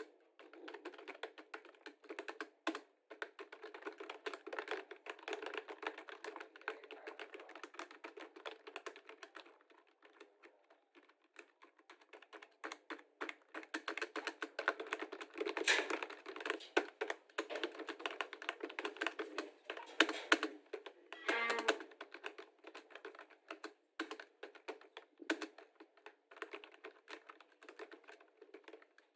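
Computer keyboard being typed on steadily, a dense, irregular run of key clicks that grows busier and louder in the middle stretch.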